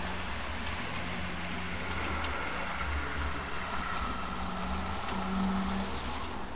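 HO-scale model trains running on the layout: a steady electric motor hum over a low rolling rumble of wheels on track. The hum grows louder a little after five seconds in, with a few faint clicks.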